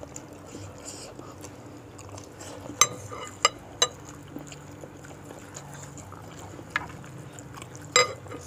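Metal cutlery clinking against a soup bowl of bakso, about five sharp ringing clinks spaced a few seconds apart, over a faint steady background.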